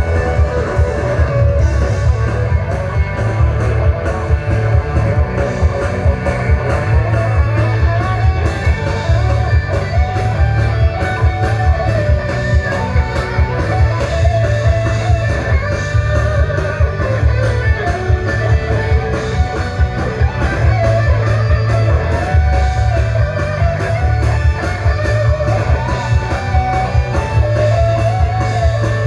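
Live rock band playing: an electric guitar lead line winds over a heavy bass and a steady drum beat.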